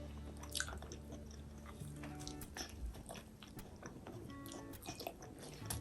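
Close-miked chewing: scattered wet mouth clicks and bites of someone eating, over quiet background music with held notes.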